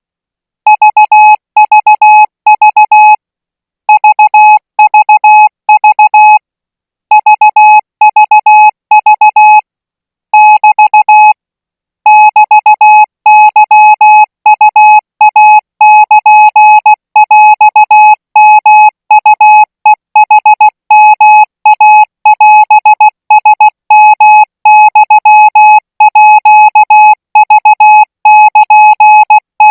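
Morse code sent as a single steady beep tone, keyed on and off into dots and dashes at 20 words per minute: a Thai Morse code practice signal. Short pauses break it into groups in the first twelve seconds, and after that the characters run on almost without a break.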